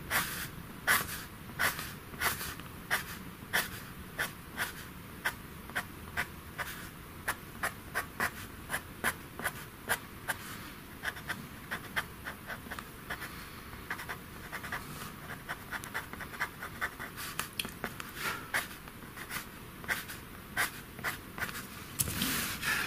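Pastel pencil scratching on pastel paper in quick, short hair strokes, about two a second. Near the end there is a brief rustle as the sheet and drawing board are shifted.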